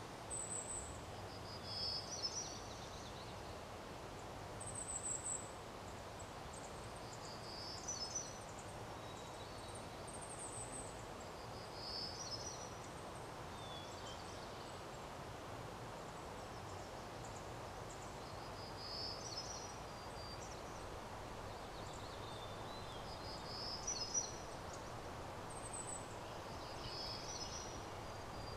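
Small birds giving short, high-pitched chirping calls every couple of seconds over a steady background hiss.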